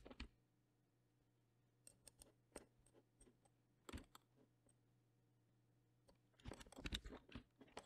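Faint, scattered clicks of computer keys and a mouse being pressed, a few single clicks and then a quick run of clicks near the end.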